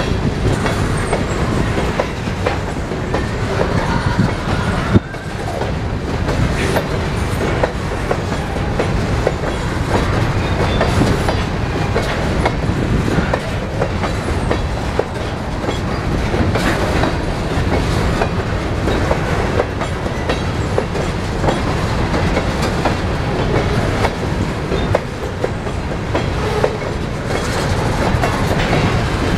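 A long freight train of empty covered hopper cars rolling past: a steady rumble with the steel wheels clicking over the rails. There is one sharp bang about five seconds in.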